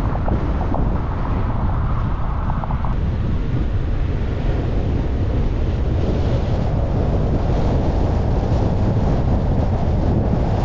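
Steady low rumble of a car driving along a city street: tyre and road noise with wind buffeting the microphone.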